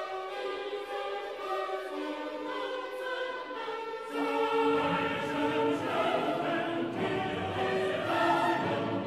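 End-credits choral music: a choir singing long held notes. About four seconds in, deeper parts come in and the music grows louder.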